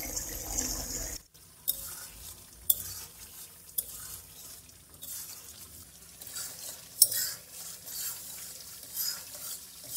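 Metal spatula stirring beef curry in a steel karahi, clinking against the pan now and then over a steady sizzle as the sauce cooks down to dry off its water.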